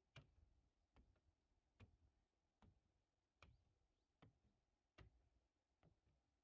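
Very faint footsteps of a person walking at a steady pace, about one step every 0.8 seconds, each a soft low thud with a light click.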